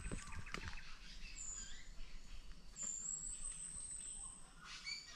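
Forest birds calling: a couple of very high, thin drawn-out whistles about a second long, with short chirps between them, and a few soft ticks.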